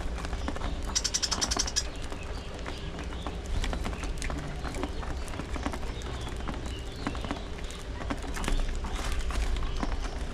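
A flock of budgerigars chattering, with many short chirps and clicks and a quick run of high, rapid chirps about a second in.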